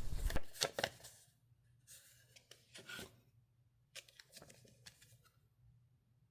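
Printed paper inserts and cardboard packaging being handled: short, faint rustles and light taps in three brief clusters, then quiet.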